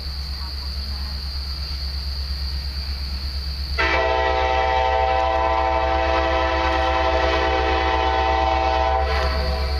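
Approaching diesel locomotive sounding its air horn in one long blast of about five seconds, a held chord of several notes that starts and cuts off sharply, over a steady low rumble.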